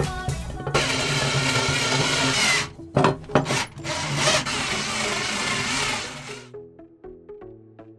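Cordless drill driving screws through a metal mounting bracket into a boat's bulkhead, its motor running in two spells of about two seconds each with a short stop between. Background music carries on under it and is left alone once the drill stops, about six seconds in.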